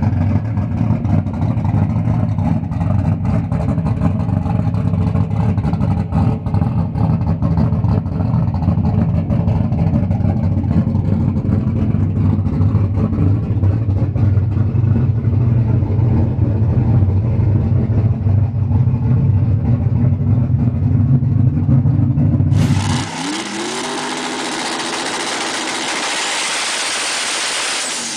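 Muscle car engine idling with a deep, steady rumble. About 23 seconds in it cuts abruptly to a different, hissier engine sound whose pitch glides downward.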